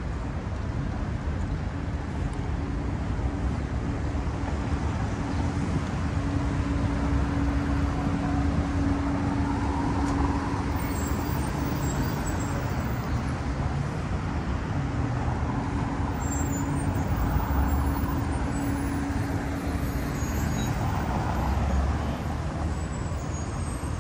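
City street traffic noise: cars and other vehicles running past at an intersection, a continuous rumble, with a steady low hum that holds for several seconds at a time, twice.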